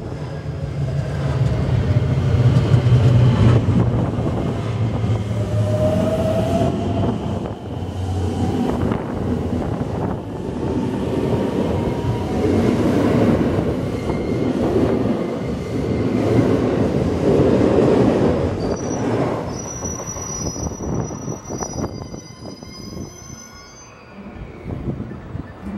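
Electric commuter trains running past at close range: a heavy rumble of wheels on rail from a long multiple unit, with a brief rising motor tone about six seconds in. A second run-by follows, then a thin high wheel squeal from about twenty seconds in as the rolling noise fades.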